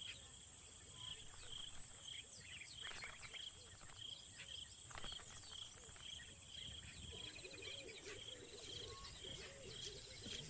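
Faint woodland ambience. A high chirp, likely an insect, repeats evenly a little under twice a second, with scattered short bird calls over it and a soft warbling call in the second half.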